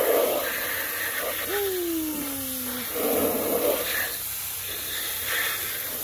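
Water jet from a spray nozzle hissing and splashing onto plastic toy trucks, washing off the mud. A drawn-out falling tone sounds briefly about halfway through.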